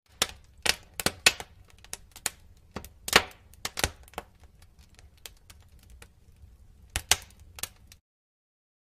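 A run of sharp clicks and snaps at an irregular pace, the sound effect of an animated logo intro, over a faint low hum; the loudest snap comes about three seconds in. The clicks stop abruptly about eight seconds in, and dead digital silence follows.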